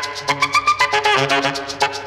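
Background music: a melody over a quick, steady beat.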